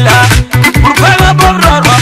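Music with a driving drum beat and a bass line, dense and loud.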